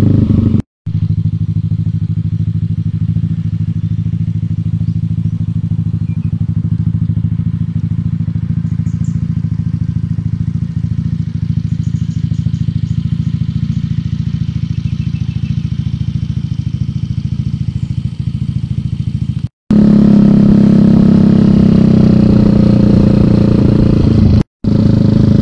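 Motorbike engine running steadily at cruising speed, heard from the rider's seat as a low, even hum. It cuts out abruptly to silence three times, and is louder after the second cut.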